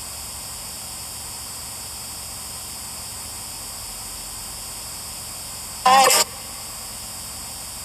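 Steady hiss of static. About six seconds in comes one short, loud, warbling squeal of about half a second.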